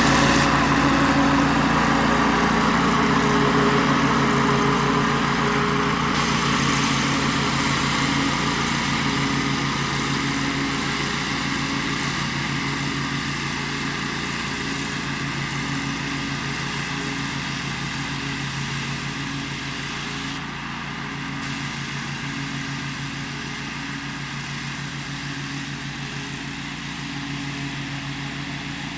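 Bad Boy 42-inch Rambler zero-turn mower's engine running steadily at mowing speed, its level slowly falling over the stretch.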